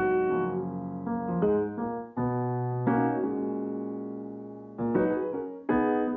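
Background piano music: slow chords struck about once a second or two, each ringing and fading.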